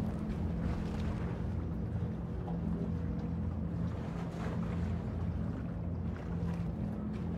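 A steady low drone with a slight pulse, over a light haze of outdoor noise.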